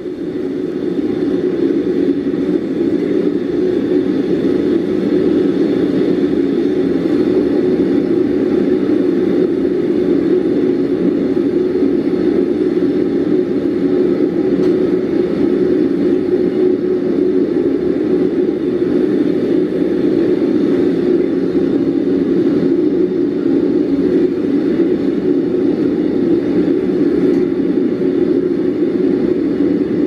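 Gas forge burner running lit, a loud, steady rushing noise that holds unbroken.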